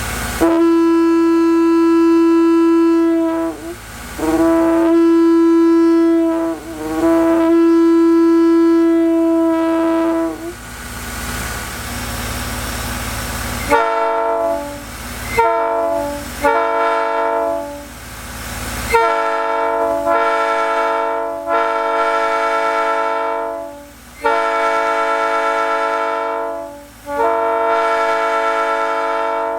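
A Leslie A75 single-note locomotive air horn sounds three long blasts of about three seconds each. About fourteen seconds in, a Nathan new-cast P3 three-chime air horn, tuned to sound like an old cast P3, takes over. It gives several short toots and then three long blasts of its chord.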